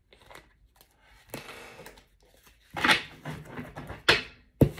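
A deck of oracle cards being shuffled by hand: soft rustling and swishing of cards sliding over each other, a louder rustle a little under three seconds in, then a sharp snap and a low thump near the end as the deck meets the table.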